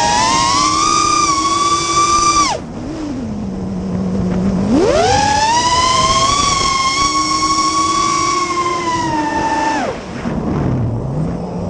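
FPV quadcopter's electric motors whining, the pitch climbing and falling with the throttle: a high whine that drops to a low hum about two and a half seconds in, climbs back high at about five seconds, drops again near ten seconds, and starts to climb near the end.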